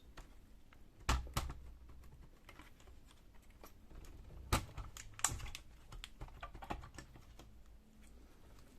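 Sharp plastic clicks and knocks from handling an opened ASUS X551M laptop as its battery is lifted out, the loudest about a second in and again around four and a half and five seconds in, with lighter ticks between.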